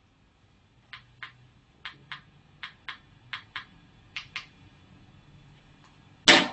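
Buttons on a handheld remote control clicking: five pairs of short clicks about three quarters of a second apart, then one louder, longer click near the end.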